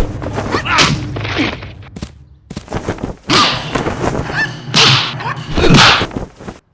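Movie fight sound effects: a quick run of swishing whooshes from punches and kicks and thudding hits, the three loudest coming in the second half. A low steady hum runs under the first half.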